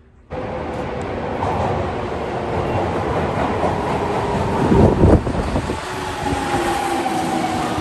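Subway train pulling into an underground station: running and rail noise with a faint motor whine that slowly falls in pitch as the train brakes, and a brief louder low rumble about five seconds in.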